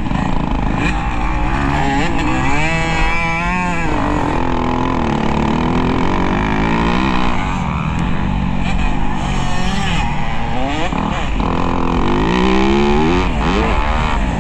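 Motocross dirt bike engine revving hard and continuously, its pitch climbing and dropping again and again as the throttle opens and closes over the track.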